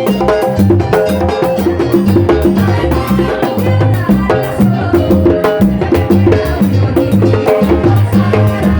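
Latin dance music with a steady bass line, driven by timbales and their sharp, woody strikes on the shell and bell.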